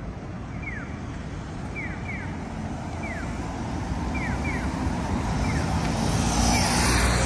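Street traffic: a road vehicle's rumble and tyre noise growing louder toward the end as it approaches and passes. Short, high, falling chirps repeat irregularly over it.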